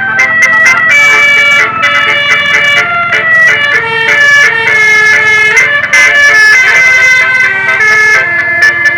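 Bus 'telolet' musical horn playing a tune: several horn notes sound together and jump to new pitches every fraction of a second, without pause.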